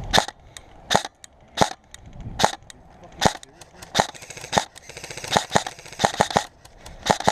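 Airsoft gun firing single shots, sharp cracks about one every 0.8 s, then a quicker run of shots about five seconds in.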